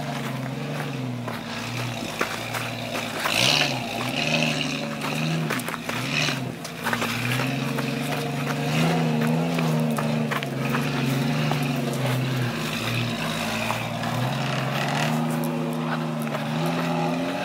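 Jeep Cherokee XJ's engine working up a steep rocky trail, the revs rising and falling again and again as it climbs, with scattered knocks and crunches of tyres over rock.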